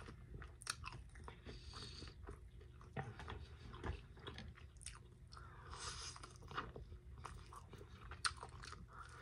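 Close-up chewing and biting of a chicken wing, with scattered short, wet mouth clicks.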